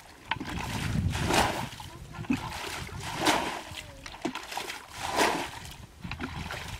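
Muddy water being bailed from a shallow ditch with a plastic bucket. It splashes as it is scooped and thrown out three times, about every two seconds.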